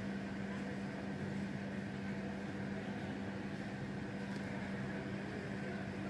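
Steady low hum of a room air conditioner, with a constant low tone and no other events.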